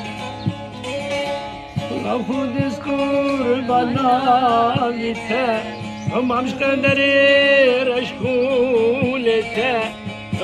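A saz (long-necked bağlama lute) being plucked in a steady folk rhythm. About two seconds in, a man's voice joins, singing a wavering, ornamented Middle Eastern folk melody over it.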